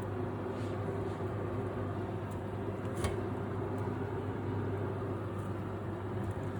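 Steady low hum of a running kitchen appliance over a light hiss, with one light click about three seconds in.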